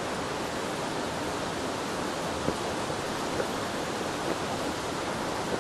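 Mountain stream rushing steadily, with a couple of faint small clicks partway through.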